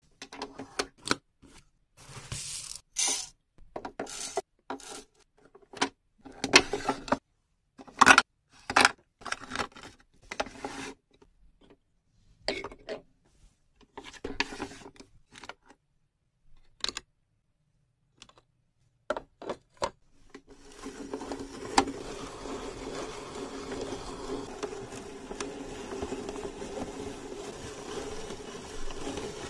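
1993 McDonald's Frozen Fruit Snack Maker toy: first a string of separate hard plastic clicks, clacks and rattles as the frozen fruit pieces and the toy's parts are handled. About two-thirds of the way in this gives way to a steady grinding as the machine crushes the frozen fruit and pushes it out through its tube.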